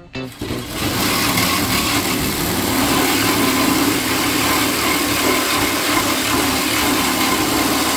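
Reciprocating saw (sawzall) cutting through a sheet of metal camper siding, running steadily. It starts about half a second in and stops near the end.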